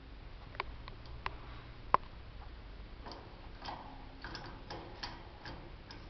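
Irregular small sharp clicks and taps, about a dozen, from a canary moving on its food cup and wire cage, with no song; the loudest click comes about two seconds in, and they come closer together after about three seconds.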